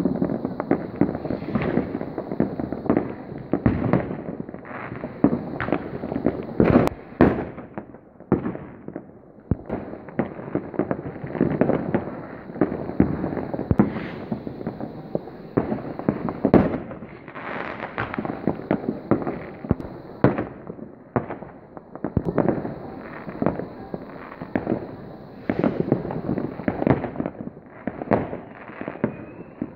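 New Year's Eve fireworks going off all over a town: a dense, unbroken barrage of overlapping bangs and crackles from many rockets and firecrackers at once.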